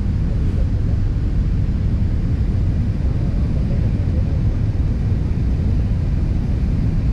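Steady low-pitched rumble of jet engines and rushing air inside an airliner's passenger cabin, climbing out after take-off.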